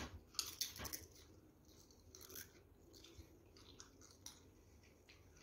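Children biting and crunching spicy Lay's potato chips: a cluster of loud crunches in the first second, then fainter, scattered crunches as they chew.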